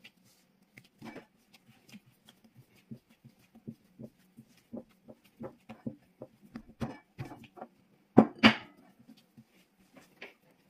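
Dumpling dough being kneaded and pressed by hand on a silicone pastry mat: a run of soft, irregular knocks and squishes, with two louder knocks close together about eight seconds in.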